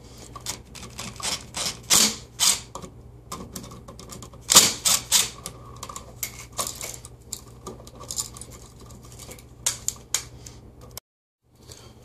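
Irregular clicks, taps and light clatter as a plastic wall outlet and its metal mounting screws are handled and pulled out of the electrical box.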